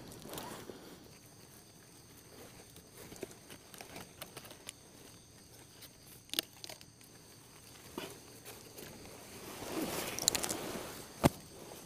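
Dry leaf litter and twigs on a forest floor rustling and crackling as someone moves and works through it, with scattered small snaps. There is a denser rustle about ten seconds in and a sharp loud snap near the end.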